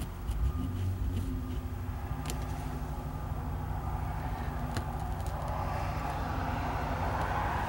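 Road traffic going by: a steady low engine hum, with tyre noise swelling near the end as a vehicle approaches. A few light clicks sound over it.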